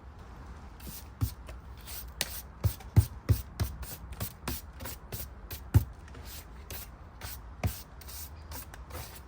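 Bristle brush sweeping woodlice off the wooden hive in quick repeated strokes, about two or three a second, with a few louder knocks against the wood.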